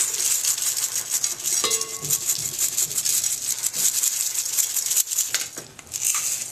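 Seasoning shaker being shaken over a raw steak in repeated bursts: the granules rattle in the container and patter onto the meat and plate, with a couple of short pauses.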